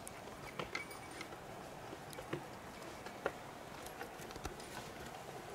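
Scattered light clicks, knocks and rustles of someone climbing a snow-covered wooden ladder to a raised hunting stand.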